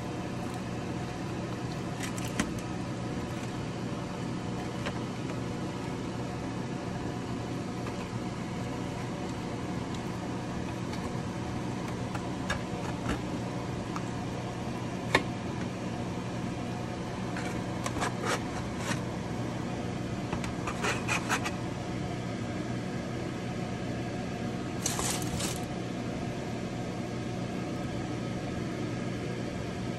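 A steady mechanical hum throughout, with scattered short clicks and scrapes of a stainless-steel blade against a metal roasting pan as a roast chicken is cut; the sharpest click comes about fifteen seconds in, and a cluster of scrapes comes near the end.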